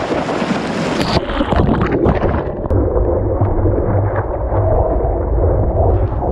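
Whitewater and spray rushing over a stand-up paddleboard and its nose-mounted camera while it rides a wave, with wind buffeting the microphone. A loud hiss at first turns muffled and rumbling about two and a half seconds in.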